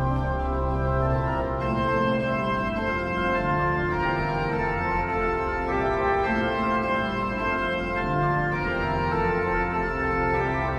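Organ music: slow, sustained chords that change every second or two over a held bass note.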